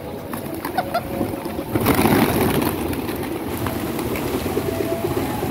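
A flock of domestic pigeons taking off together, a sudden loud rush of wing flapping a little under two seconds in that lasts about a second and a half, over a steady low noise from the flock on the ground.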